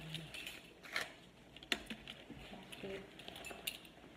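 A pair of pants being handled and folded: soft fabric rustling with a few scattered light clicks and taps.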